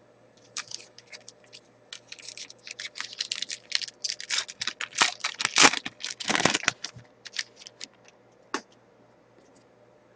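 A hockey card pack being torn open and its cards handled: a quick run of scratchy rustling and crinkling of the wrapper and cards, thinning out with a last click near the end.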